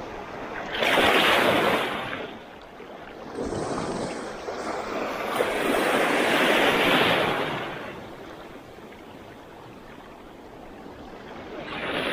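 Small sea waves washing in and breaking over shoreline rocks, swelling in surges about a second in, around four seconds in and again from about five to seven seconds in, then settling to a quieter wash.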